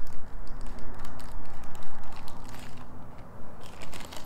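Parts of a pneumatic wiper motor being handled and fitted by hand, with scattered light clicks and crinkling over a steady low rumble.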